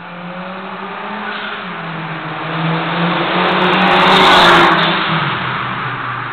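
Turbocharged 2008 Hyundai Tiburon 2.0 inline-four with a custom side-exit exhaust driving past: the engine note grows louder as the car approaches, peaks as it passes about four seconds in, then drops in pitch and fades as it pulls away.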